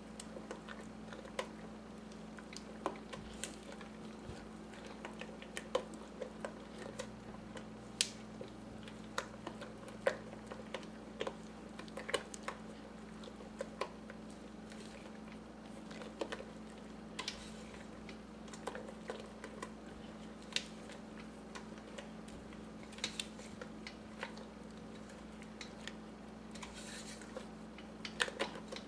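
Rubber spatula stirring thick, thickening corn pudding in a stainless steel pot: irregular soft clicks and scrapes as it drags through the paste and knocks the pot, over a steady low hum.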